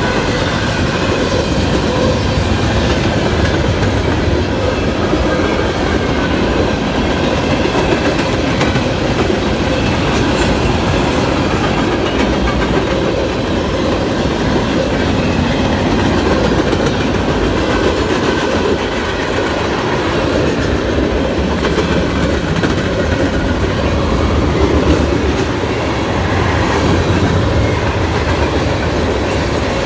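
Freight cars of a Norfolk Southern mixed freight train rolling past close by: a loud, steady rumble with the wheels clattering over the rail joints.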